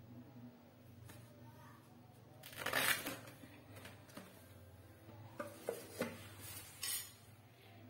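Fresh taro stalks handled in a plastic colander: a loud crisp rustle about two and a half seconds in, then a few light knocks and another short rustle as the stalks are stood in the basket, over a steady low hum.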